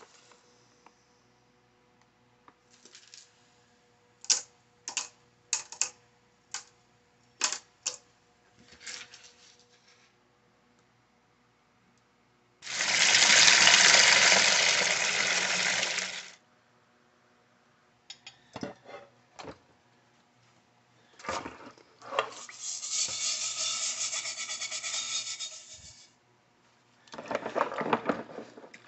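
Hands-on work on a small tool's parts. A run of sharp clicks and clinks comes first, then a loud hiss of about four seconds midway, then more clicks and two stretches of rubbing noise.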